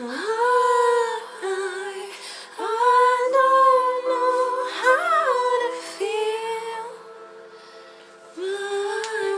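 A woman singing a slow melody in long held notes over steady sustained chords, going quieter about seven seconds in before one last held note.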